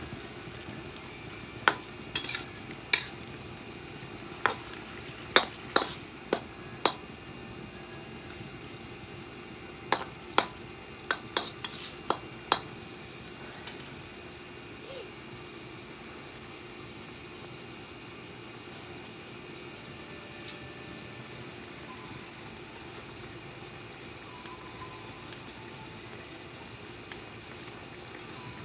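Food frying steadily in a pan, with a dozen or so sharp metal clinks of a spatula stirring against the pan during the first half.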